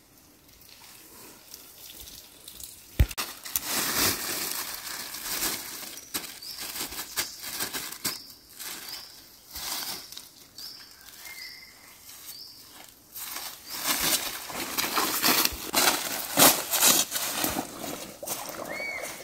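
Dry leaf litter crunching and rustling under footsteps and as a green mesh fish trap is handled and carried. It comes in irregular bursts, starting with a sharp click about three seconds in.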